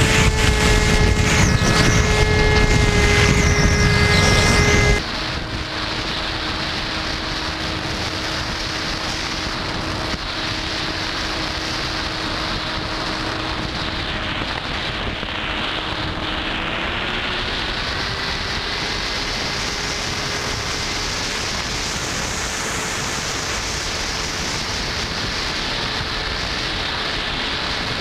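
R/C airplane's motor and propeller drone in flight, heard through the onboard camera's microphone under a steady rush of wind. About five seconds in, the drone drops suddenly to a quieter, lower note, and it climbs a little in pitch again past the middle.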